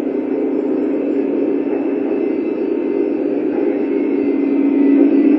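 Lionel O-gauge Amtrak F40PH model train running along the track with its passenger cars, a steady running noise of wheels and motors that grows louder as the train comes near.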